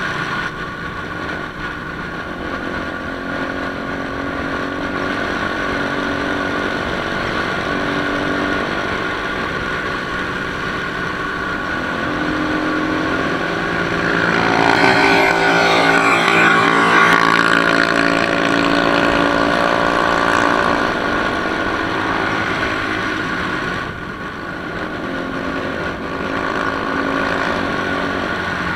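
Motorcycle engine running steadily at road speed, heard from the riding bike. About halfway through, the engine note shifts and a louder rushing noise rises for several seconds, then settles back.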